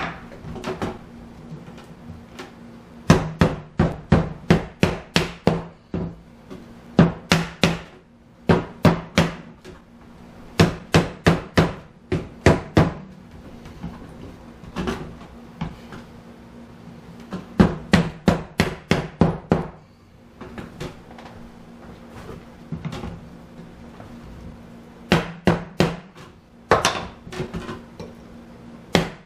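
Soft-faced mallet knocking on the hardwood bow of a Windsor bowback chair, driving the bow down onto its spindles. The knocks come in quick runs of several, about three or four a second, with short pauses between runs.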